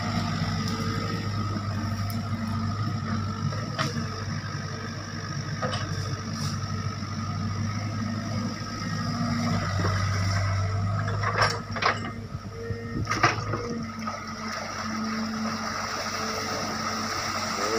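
SANY SY55C mini excavator's diesel engine running steadily under hydraulic work. Its low hum eases about two-thirds of the way through, where a few sharp knocks from the working attachment come close together.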